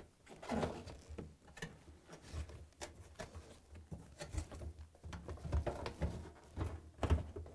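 Rubber door boot seal of a Samsung front-load washer being worked off the front panel lip and tucked into the drum: faint, irregular rubbing with scattered light clicks and knocks.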